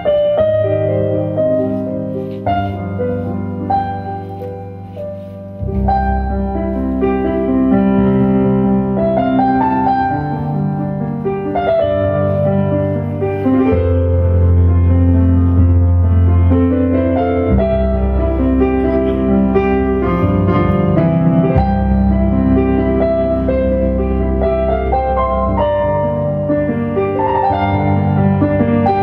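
Instrumental music on a keyboard with a piano sound, sustained chords and melody notes. About six seconds in a deep bass part comes in and the music grows louder.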